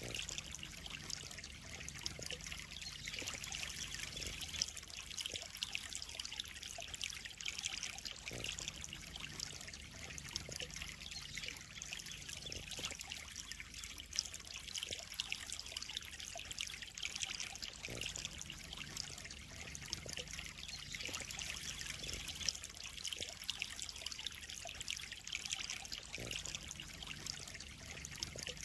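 Water trickling and splashing steadily into a koi pond, a continuous fine crackle without pauses.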